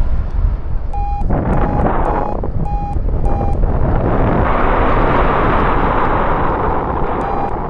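Flight variometer beeping in short, evenly spaced beeps at one pitch, five in a row, then two more near the end: the beeping that signals climbing in lift. Strong wind buffets the microphone throughout and grows louder about halfway through.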